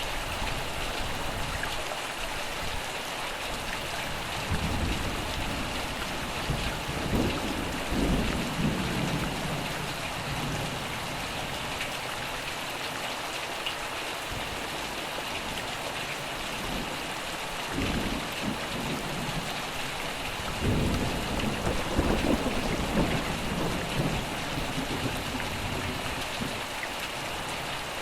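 Steady rain falling, with low thunder rumbling three times: a long roll starting about five seconds in, a short one just past the middle, and another long roll soon after.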